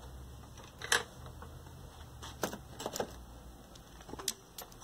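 Light metallic clicks and clinks of small hand tools being handled, as a nut driver is picked up: four or five separate sharp taps spread over the few seconds, over a faint steady low hum.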